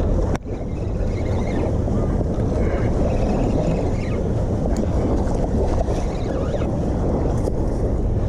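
Wind buffeting the microphone, a loud, steady low rumble that briefly drops out just after the start.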